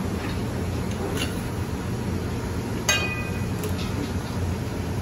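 A sharp metallic clink about three seconds in that rings briefly, with a few lighter clicks around it: a metal conical strainer knocked against a steel hotel pan as it is handled. A steady low hum runs underneath.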